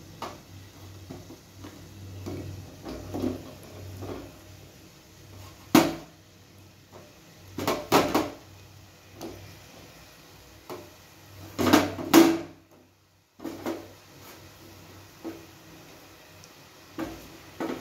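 Lumps of jaggery dropped one after another into a non-stick kadai holding a little water, each landing with a knock against the pan; a few knocks stand out loud among softer ones, and the sound drops out completely for about a second midway.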